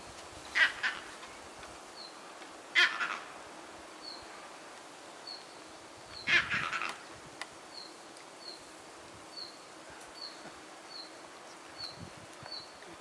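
Three loud bird calls a few seconds apart, over a faint high chirp that repeats about once or twice a second.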